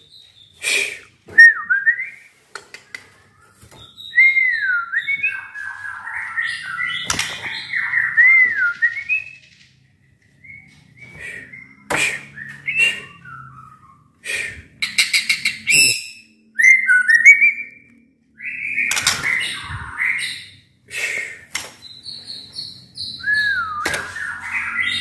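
White-rumped shama (murai batu) singing in full voice: varied phrases of clear whistles that swoop up and down, rapid trills and sharp clicks, broken by short pauses.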